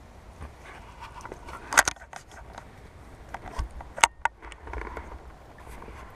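Handling noise from a body-worn action camera being moved and adjusted: clothing rustling and scraping, with a few sharp clicks and knocks, the loudest about two seconds in and about four seconds in.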